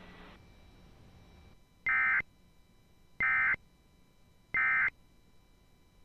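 Emergency Alert System end-of-message code: three short bursts of warbling digital data tones, each about a third of a second long and spaced about a second and a half apart, marking the end of the alert. A faint hiss fades out in the first half-second.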